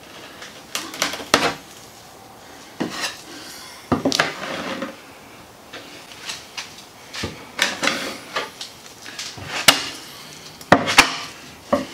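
A hand spreader scraping and smearing TotalFair epoxy fairing compound across a plywood boat hull, in irregular strokes. A few sharp clicks sound near the end as the blade is knocked and scraped against a second spreader.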